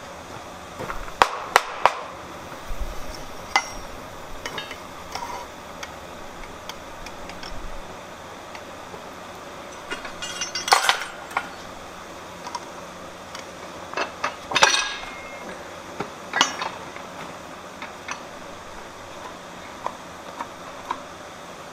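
Steel tooling and a hot steel bar clinking and clanking on the cast bolster plate of a fly press as they are set in place with tongs: a few sharp metallic clinks about a second in, a clatter about ten seconds in and another around fourteen seconds, over a steady low background noise.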